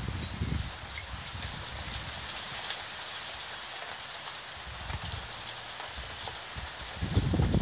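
Steady rain falling, a hiss dotted with many small drop ticks. A low rumble comes at the start and swells louder near the end.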